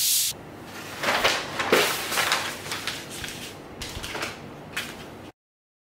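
Paper pattern pieces and a large sheet of tracing paper rustling and crinkling as they are moved and smoothed flat on a cutting mat. The sound cuts off abruptly near the end.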